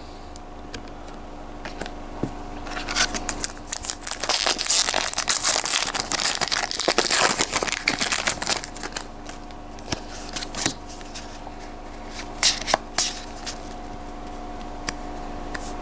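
Foil booster-pack wrapper crinkling for several seconds as it is torn open, then trading cards being slid out and shuffled by hand with light clicks and flicks.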